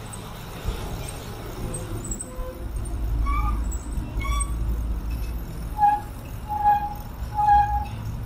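Wind rumbling on the microphone and tyre noise from a bicycle ride along a cycle track, swelling in the middle. Near the end come three short high-pitched calls, evenly spaced under a second apart.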